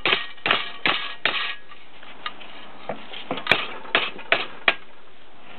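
Hammer striking steel quarter-20 bolts clamped in a bench vise to bend them over, about two or three blows a second, each a sharp metallic clank with a short ring. The blows thin out briefly around two seconds in, then pick up again.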